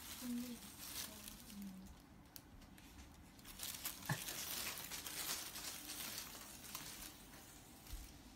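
Thin plastic bag crinkling and rustling as a cat walks along with the bag caught over its body, in bursts that are busiest in the middle.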